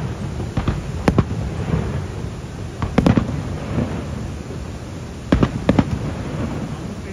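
Aerial fireworks shells bursting in a series of sharp bangs with a trailing echo, the loudest about three seconds in and two in quick succession near the end, over a steady low background rumble.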